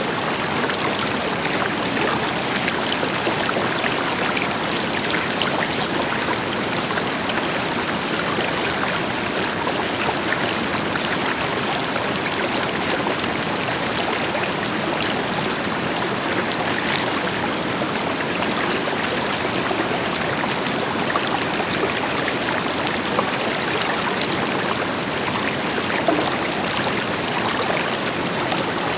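River water flowing steadily over rocks, a constant rushing and splashing with a deeper waterfall rush beneath it.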